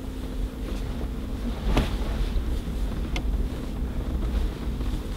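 Mercedes-Benz G500 4x4²'s twin-turbo V8 running low and steady, heard from inside the cabin as the truck crawls over rock, with a few sharp knocks from the body, the loudest about two seconds in and another a second or so later.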